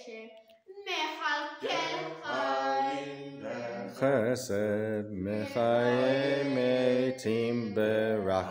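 A boy's voice chanting Hebrew prayer in the traditional sung recitation, with a deeper voice chanting along beneath it from about two seconds in.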